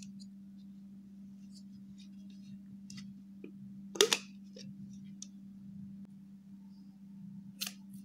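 Handling noises of a clear tumbler: faint small clicks and rustles, then a sharp double click about four seconds in as its white lid is pressed on, and another click near the end, over a steady low hum.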